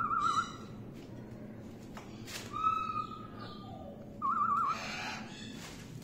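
Blue-fronted Amazon parrot whistling: a quick warbling trill at the start, a held whistle about two and a half seconds in, and another warbling trill a little after four seconds.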